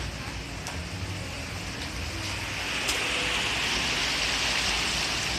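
A motor vehicle driving through floodwater on the street: a low engine hum, with a hiss of water spray from the tyres that swells about halfway through and stays loud to the end.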